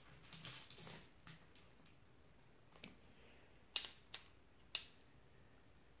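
Faint rattle of tiny M2 laptop screws being picked from a plastic compartment organizer box, followed by about six separate sharp clicks of small hard parts, the loudest a little past the middle.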